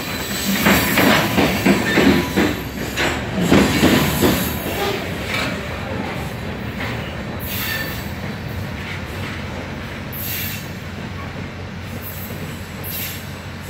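Covered hopper cars of a frac sand freight train rolling past, their wheels clacking over the rail joints. The clacking dies out after about four seconds and the rumble fades as the last cars pull away.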